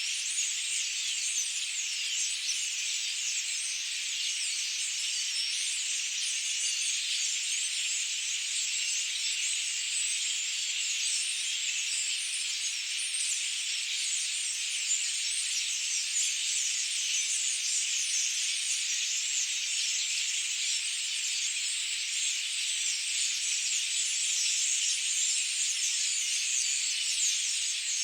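Steady, high-pitched forest insect chorus, a continuous dense buzz of many insects such as cicadas, holding an even level throughout.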